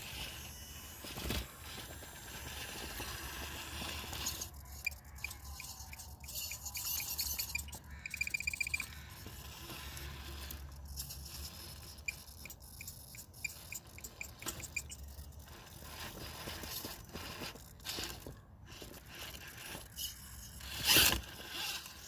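Scraping and crunching of an RC rock crawler working over rough ground. Two stretches of a fast, high ticking come through, with a sharp loud knock near the end.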